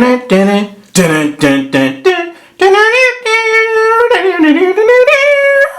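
A voice singing a short intro tune without words: quick clipped syllables, then a long held note that dips in pitch and rises again before stopping at the end.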